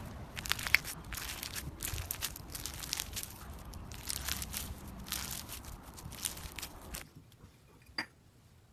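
Floam, slime packed with foam beads, squeezed and kneaded in the hand, the beads crackling and crunching in quick irregular bursts. About seven seconds in it stops, leaving faint sound and one sharp click near the end.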